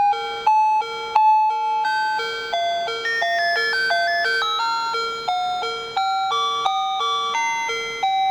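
Built-in melody of a LuazON LB 10 star-projector alarm clock: a simple electronic beeping tune, with a low note pulsing about twice a second under a higher melody line.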